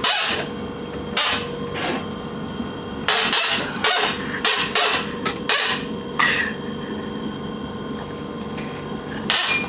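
Steady hum inside a train carriage, broken by about a dozen short hissy bursts at irregular intervals, the strongest right at the start and again near the end.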